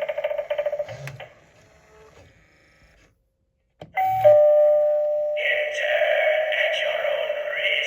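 Gemmy animated eyeball doorbell prop sounding through its small speaker: a buzzy sound fades out in the first second, and after a click and a pause it plays a two-note descending ding-dong about four seconds in. A loud, buzzy, distorted sound effect from the prop follows and carries on.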